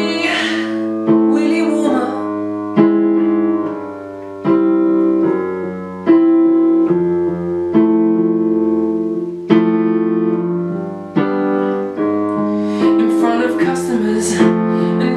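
Electronic keyboard playing piano-voiced chords. A new chord is struck about every one and a half to two seconds and left to ring and fade.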